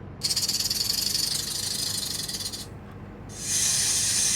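Snake sound effect: a rattlesnake's tail rattle, a fast dry buzz lasting about two and a half seconds. After a short pause a long hiss begins near the end.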